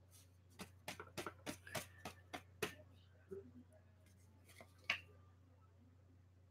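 Slips of paper being handled and unfolded by hand: a quick run of crisp crackles and snaps, then a few scattered ones, the loudest about five seconds in.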